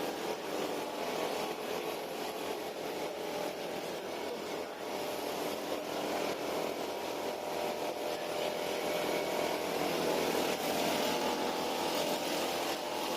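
A small engine running steadily, with no break in its sound.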